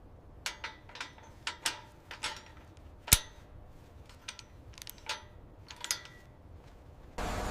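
A series of about a dozen sharp clicks and light taps at irregular intervals, with one much louder sharp crack about three seconds in.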